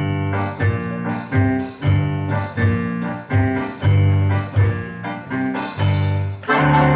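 Instrumental intro of a song played on a keyboard with a piano sound: a steady, bouncing pattern of chords over a strong bass, a new stroke about every half second. A singing voice comes in near the end.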